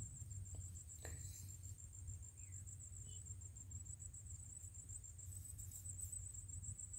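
Faint, high-pitched cricket trill that pulses rapidly and holds steady, over a low rumble, with a faint click about a second in.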